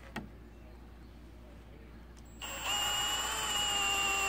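Electric drill driving a screw to toenail a 2x4 into place: a small knock just after the start, then a little over halfway through the drill motor starts and runs at a steady pitch.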